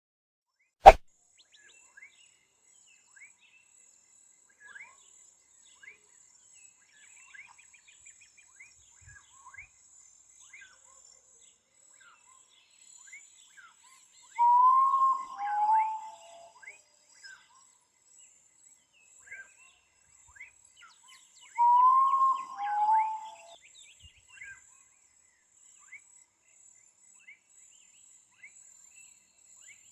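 A sharp click about a second in, then a bird giving a loud two-note whistled call twice, a higher note dropping to a lower one, over faint scattered chirps of other birds and a steady high insect hiss.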